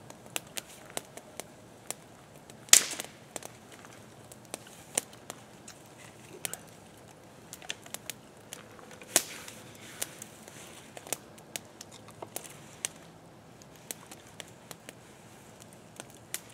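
Small wood campfire crackling with scattered sharp pops, two of them louder, about three seconds in and about nine seconds in.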